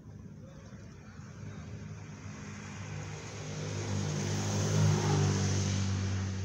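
A motor vehicle driving past on the road: engine hum and tyre noise grow louder, peak about five seconds in, then begin to fade.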